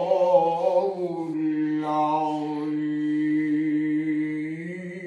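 An elderly man's voice in melodic Quran recitation, holding one long drawn-out note at a steady pitch on the close of a verse. The note eases off near the end.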